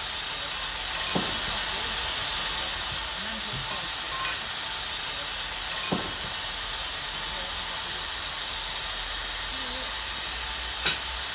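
Steady steam hiss from a Hornby OO gauge model of a BR Standard 2MT steam locomotive, with three short clicks, the last and loudest near the end.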